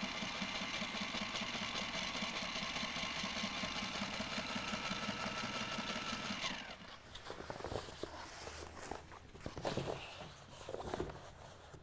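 Sewing machine running steadily as it stitches a seam, with a fast even pulse, then stopping about six and a half seconds in as the motor winds down. Scattered light knocks and rustles follow.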